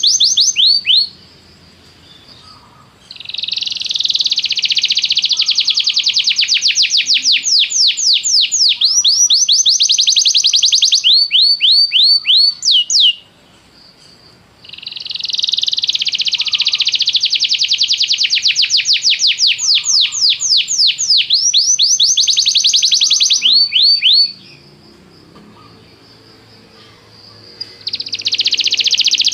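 Domestic canary singing in long phrases of rapid, repeated downward-sweeping notes and fast trills, with brief pauses between the phrases.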